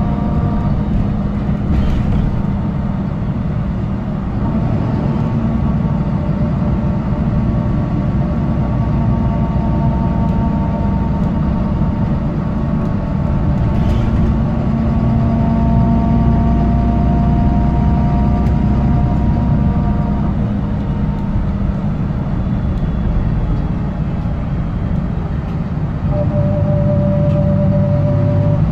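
BMC Condor bus engine running under way with a blown exhaust, heard from inside the saloon: a loud, steady low rumble with whining tones that slowly rise and fall.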